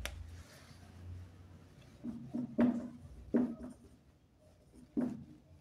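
Writing: a handful of short, irregular strokes, mostly about two to three and a half seconds in and again near the end.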